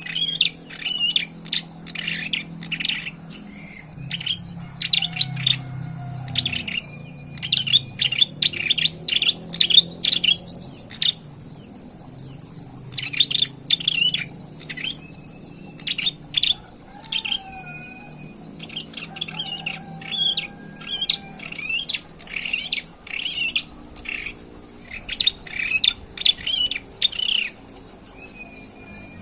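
An ashy tailorbird, a young bird learning its song, calls in rapid runs of sharp, high chirps with brief pauses, and now and then a short held whistle. A steady low hum sits underneath.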